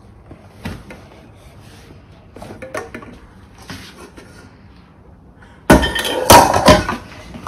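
Stainless steel pot and ladle clinking and clattering: a few light taps, then from about two-thirds of the way in, loud repeated metal clanks with ringing.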